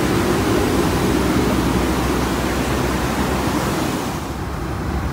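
Steady rushing cabin noise inside a Boeing 757-200 airliner in flight, the airflow and engine roar heavy in the low end. About four seconds in, the hiss becomes duller.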